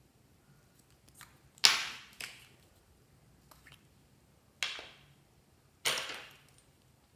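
Small plastic containers handled close up: a few faint clicks and three louder sharp clacks, each fading over about half a second, the first about a second and a half in and two more a little over a second apart later on.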